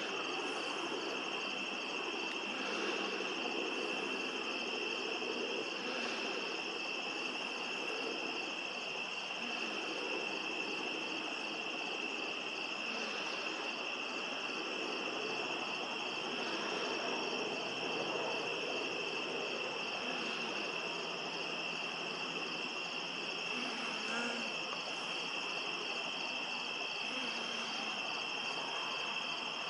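Steady night chorus of crickets: a continuous high trill with no break.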